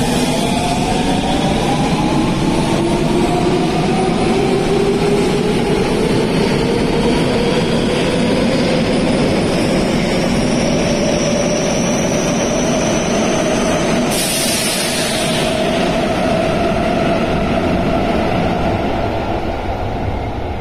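Osaka Metro 21 series electric train pulling out of an underground station, its inverter-driven traction motors whining in several tones that rise steadily as it accelerates, over the rumble of wheels on rail. A brief burst of hiss comes about two-thirds of the way through, and the sound eases near the end as the train runs into the tunnel.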